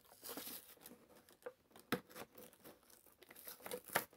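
Action-figure box being handled and opened: tearing and crinkling of the packaging, with sharp snaps about two seconds in and near the end.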